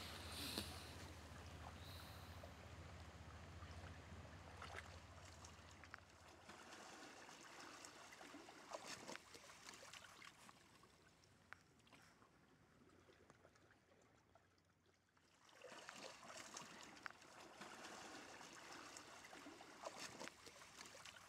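Faint trickling stream water with scattered small clicks and splashes. About halfway through it fades almost to nothing for a few seconds, then returns.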